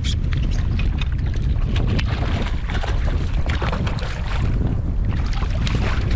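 Wind buffeting the microphone in a steady low rumble, with irregular splashing as a hooked bluefish thrashes at the surface beside a kayak.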